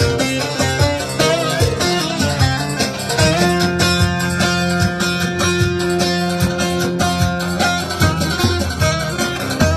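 Live Turkish folk dance music: a davul bass drum beating steadily under an amplified melody with long, sliding notes.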